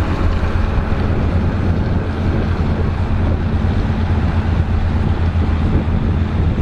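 John Deere tractor engine running steadily while ploughing, with wind buffeting the microphone.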